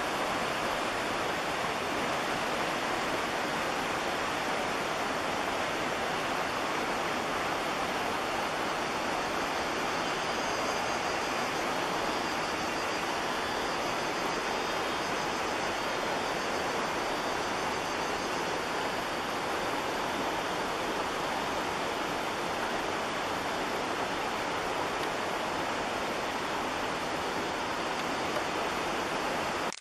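A steady, even rushing hiss with no distinct events, unchanged throughout.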